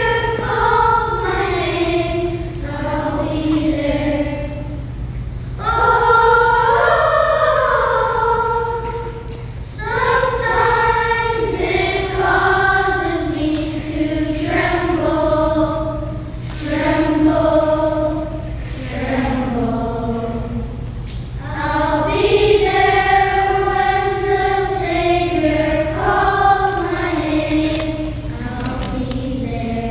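Children's choir singing together in unison, in phrases of a few seconds with short breaths between them.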